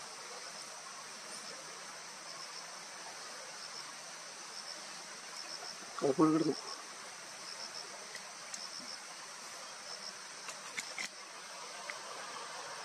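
Insects chirring steadily, with short high chirps in twos and threes about once a second. A single spoken word breaks in about halfway, and a few faint clicks come near the end.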